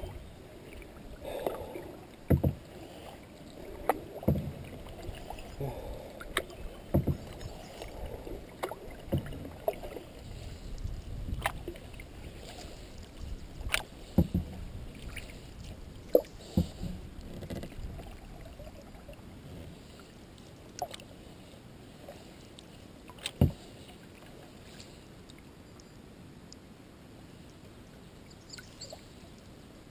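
Paddling a skin-on-frame canoe: water swishing off the paddle, with sharp knocks of the paddle against the boat every second or two. The knocks grow fewer and quieter in the second half, leaving the soft lap of water.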